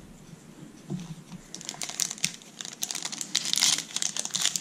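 Foil wrapper of a Panini Prizm Draft Picks trading-card pack crinkling and crackling as it is handled and torn open, starting about a second and a half in and loudest toward the end.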